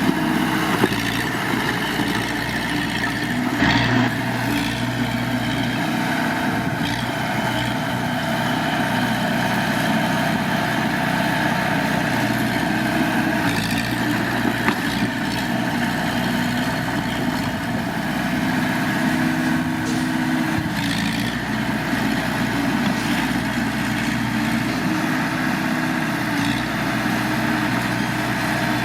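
Diesel engine of heavy earthmoving machinery running steadily, with a few brief knocks about a second in, around four seconds in and near the middle.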